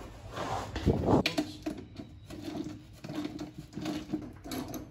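Seat bolt being fitted and turned with a hex key through a fiberglass kart seat: a series of short, irregular scraping and clicking sounds, with a knock about a second in.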